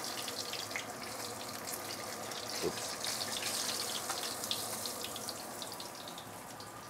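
Whole black pomfret semi-deep-frying in hot oil in a stainless steel wok, a steady crackling sizzle. It thins out near the end as the fish is lifted out of the oil on a spatula.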